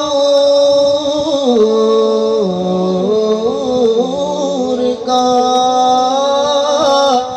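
Naat singing: a voice draws out a long wordless line, holding notes and stepping down in pitch about a second and a half in, with a short break about five seconds in.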